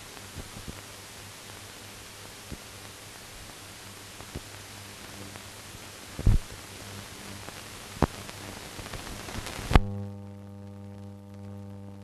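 Surface noise of a blank newsreel soundtrack: a steady hiss and low hum with scattered clicks and pops, the loudest about six and eight seconds in. Near the end a sharp click, and the hiss gives way to a steady buzzing hum.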